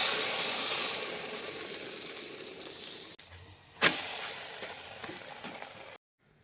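Egg frying in a hot pan for an omelette, a loud sizzle that slowly fades. It cuts off just after three seconds, comes back loud a little later, fades again and stops abruptly near the end.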